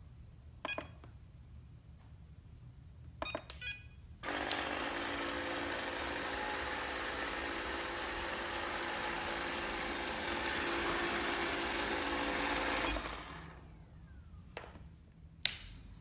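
An iLife device starts with a few clicks and short beeps. About four seconds in it breaks into a loud, steady whirring noise with a hum under it, which runs for about nine seconds before stopping. This is the weird, loud noise that the owner is reporting to customer service as a fault.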